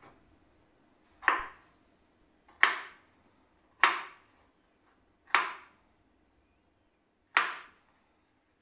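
Kitchen knife chopping through red bell pepper onto a plastic cutting board: five separate chops, one to two seconds apart.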